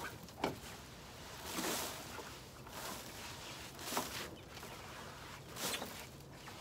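Gloved hands sweeping used wood shavings across a linoleum coop floor and letting them spill into a wheelbarrow: a run of rustling scrapes, one every second or so.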